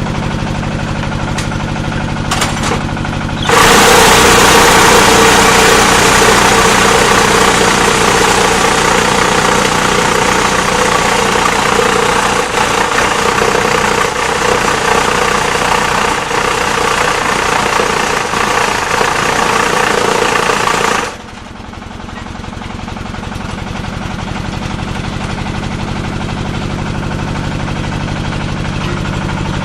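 Diesel engine driving a paving-block machine, running steadily. About three and a half seconds in, a much louder, harsh mechanical noise from the working machine starts. It stops abruptly after about seventeen seconds, leaving the engine running and slowly picking up again.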